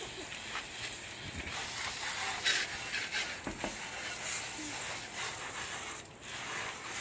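Garden hose spray nozzle spraying water onto a car's rear glass, a steady hiss and spatter that briefly drops out about six seconds in.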